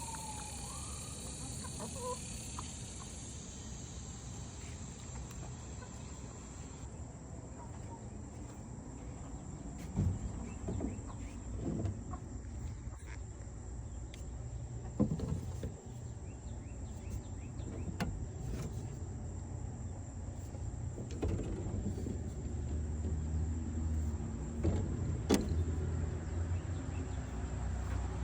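Backyard chickens clucking now and then over a steady low rumble, with a few sharp knocks and bumps.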